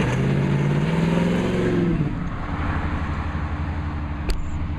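350 Chevy small-block V8 of a 1937 Ford coupe street rod, breathing through block-hugger headers and Flowmaster mufflers, accelerating with a rising exhaust note for about two seconds, then running steadily as the car drives away. A single sharp click about four seconds in.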